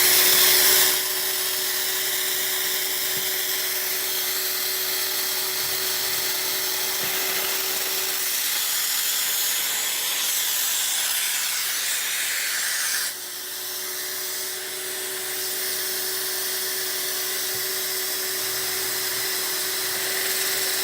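A shop dust extractor runs steadily while an electric drill bores a hole in wood through a drill jig. The drill's steady whine is heard twice, with a pause of a few seconds midway.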